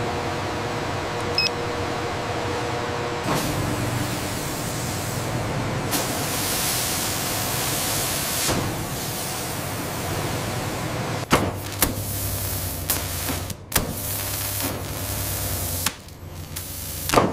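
Factory machinery noise: a steady hiss that grows brighter a few seconds in. In the second half it is joined by a low hum and a series of sharp clanks and knocks.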